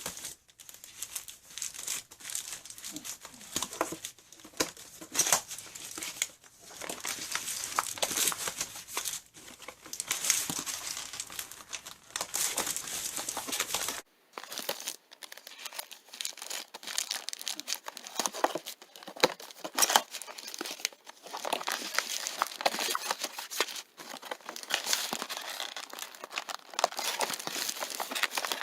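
Packaging being opened and handled: continuous crinkling and rustling with sharp crackles and some tearing.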